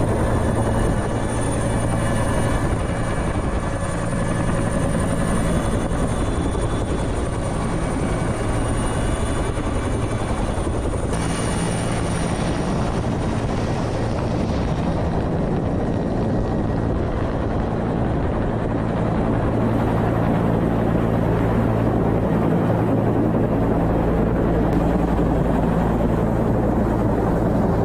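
Helicopter hovering, heard from its open cabin door: rotor and turbine engines running steadily with heavy wind rush. A thin high turbine whine fades out past the middle.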